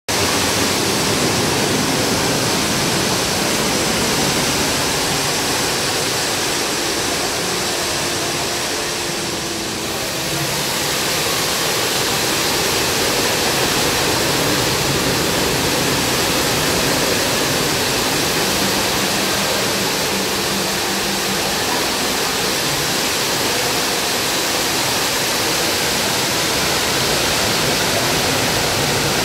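A whirlpool of water pouring down from a ceiling bowl as a falling column into a pool below: a steady, loud rush and splash of falling water.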